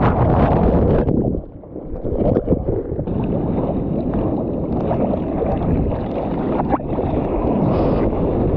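Wind buffeting the microphone over sea water sloshing and splashing, a dense rumbling noise with small splashy clicks, briefly quieter about one and a half seconds in.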